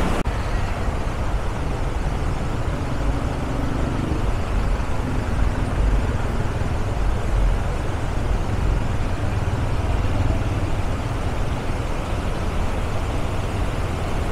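Ruiru River in flood, over its banks, rushing through rapids as a steady, unbroken noise.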